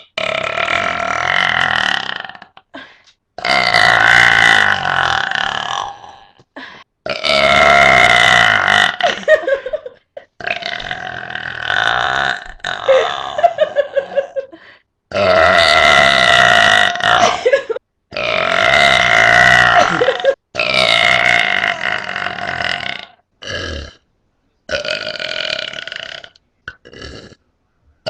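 A person burping again and again: a series of long, drawn-out burps, most lasting two to three seconds, with short pauses between them and two brief ones near the end.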